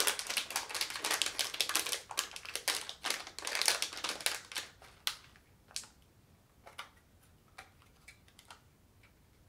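Plastic packaging crinkling and crackling as hands unwrap a small electronic part. The crackling is dense for about five seconds, then thins to a few scattered handling clicks.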